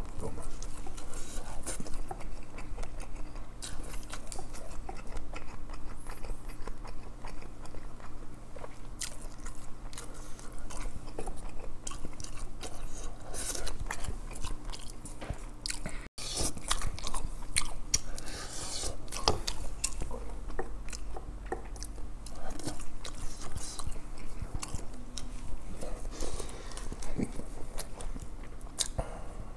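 Close-miked chewing and lip-smacking of grilled yellow croaker and rice, with many small wet clicks.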